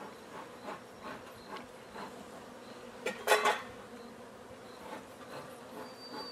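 Honey bees buzzing around an open hive as its frames are handled, with light knocks now and then. A short, louder burst of noise comes about three seconds in.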